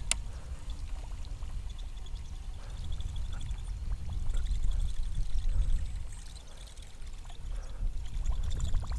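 Wind buffeting the microphone in a low, uneven rumble, over water sloshing. A sharp click comes right at the start.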